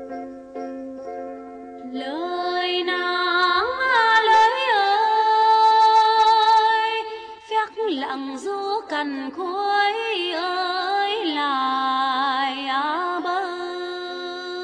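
A woman singing a Tày Then folk song, with long held notes that waver and slide, over a plucked đàn tính lute accompaniment; the voice comes in about two seconds in.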